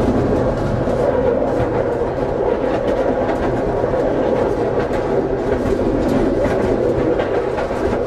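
Tatra T3SU tram running along the track: a steady rumble of wheels on rails and running gear, with faint clicks from the rails.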